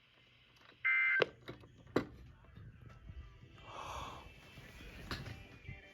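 NOAA Weather Radio's brief EAS data burst, a harsh warbling two-tone chirp about a second in, marking the end of the tornado warning message. It is followed by a few sharp clicks and faint hissy noise.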